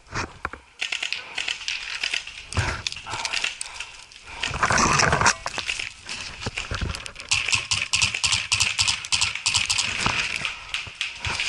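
Close rustling and crackling of twigs, dry forest litter and spruce branches as a person crawls through undergrowth, with branches and clothing brushing against the head-mounted camera. A louder scrape lasting under a second comes about four and a half seconds in.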